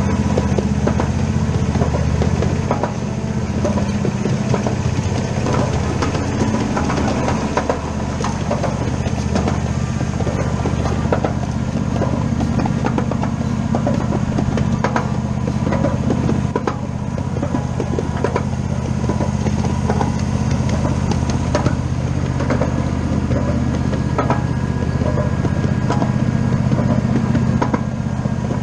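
An engine running steadily at a constant speed, with many small clicks and knocks over it.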